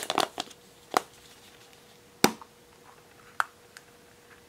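Hard plastic surprise egg handled and snapped open: a few quick rattling clicks at first, a single sharp snap a little over two seconds in, then two lighter clicks.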